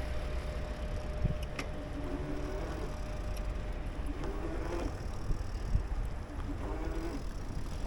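Low wind rumble on the microphone and road noise from a moving bicycle, with a few faint distant voices.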